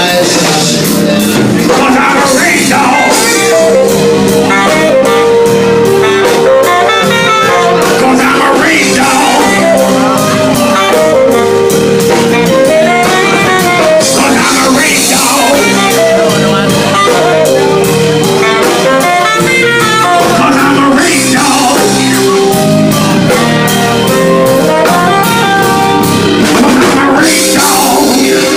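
Live blues band playing an instrumental passage, loud and steady: drum kit with cymbals under sustained melody lines.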